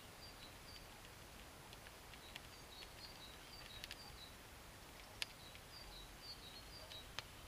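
Faint crackle of a small fire burning in a Firebox hobo stove, with two sharp pops about five and seven seconds in. Throughout, a small bird repeats short, high chirps.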